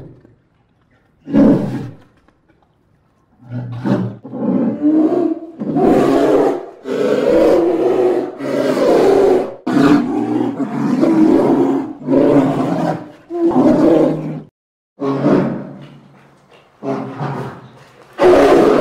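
Polar bears growling and roaring in a long series of calls, one after another with short gaps, after a brief pause at the start.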